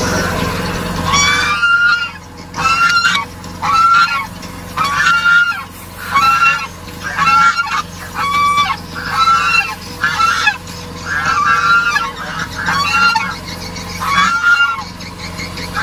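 Domestic goose honking over and over, a steady run of short calls at about two a second, starting about a second in.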